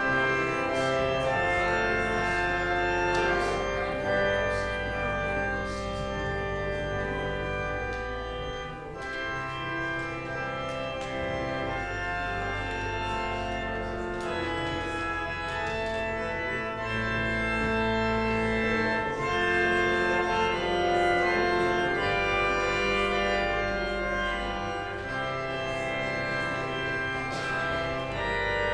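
Organ music: slow sustained chords over long-held bass notes that change every few seconds.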